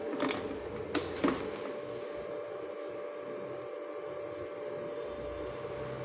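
Key turned in the ignition lock of a Luyuan MNK3 electric scooter, switching it on: three sharp clicks in the first second and a half, over a steady faint hum.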